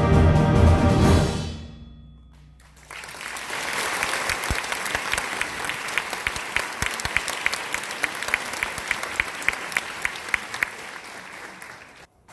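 A middle school concert band's held final chord ends about a second and a half in and dies away; then the audience applauds, one close clapper standing out with about three sharp claps a second, until the sound cuts off just before the end.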